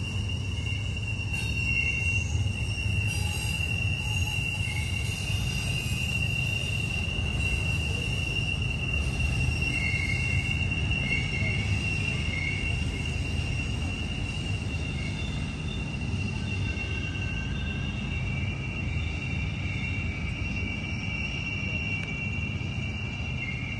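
Train rolling around a tight curve, its wheel flanges squealing against the rail in a steady high tone, with shorter squeals coming and going over the low rumble of the cars.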